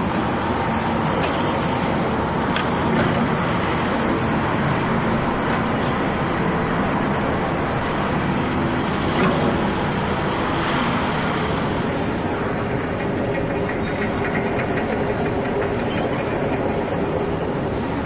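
Electric motors and gearing of remote-control model construction machines (an RC excavator and RC dump trucks) running steadily as a mechanical whirring grind, with a couple of sharp clicks of metal parts.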